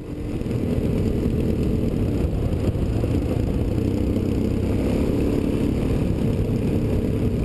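Suzuki DR-Z400S single-cylinder four-stroke engine running steadily under way on a gravel trail, mixed with wind and road noise. It fades in over the first second.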